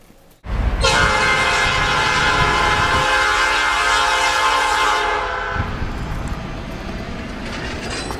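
Diesel freight locomotive's air horn sounding one long chord of about five seconds, starting suddenly about half a second in, over the rumble of the passing train. The rumble goes on after the horn stops.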